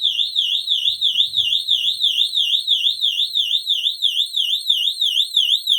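FCI fire alarm horn strobe sounding its warble tone: a high electronic tone sweeping up and down about five times a second, a very weird tone.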